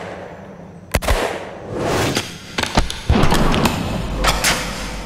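Iranian-made Heckler & Koch G3 battle rifle, a roller-locked 7.62 NATO rifle, firing single shots in semi-auto. The first shot comes about a second in and more follow around two and a half to three seconds in, each a sharp crack with a trailing ring.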